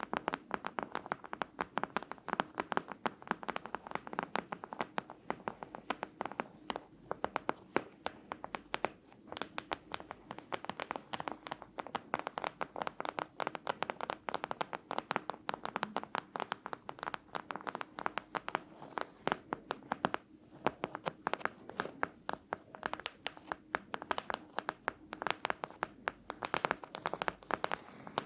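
Fast tapping and scratching on an object, close to the microphone: a dense, unbroken run of many quick taps a second.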